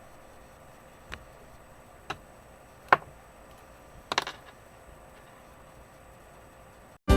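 Small, sharp clicks from a Master Lock padlock being worked: single clicks about a second apart, then a quick cluster of several clicks about four seconds in.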